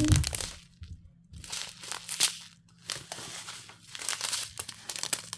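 Small plastic bags of diamond-painting drills crinkling as they are handled, in several bouts with short pauses between.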